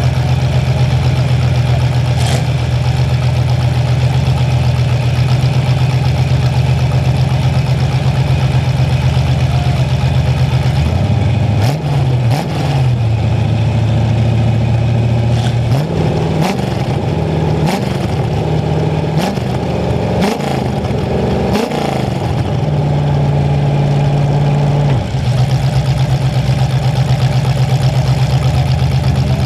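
Demolition derby car's engine running loud through open exhaust stacks on the hood. It idles steadily, is revved in a series of short blips from about eleven seconds in until about 25 s, then settles back to a steady idle.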